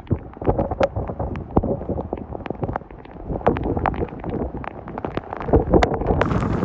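Hurricane winds buffeting the microphone in uneven gusts, with many sharp, irregular clicks and taps on top and a brief lull about three seconds in.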